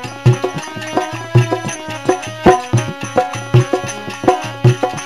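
Instrumental interlude of a Rajasthani bhajan: a hand drum plays a steady rhythm, a strong low stroke about once a second with lighter strokes between, under a sustained melodic accompaniment.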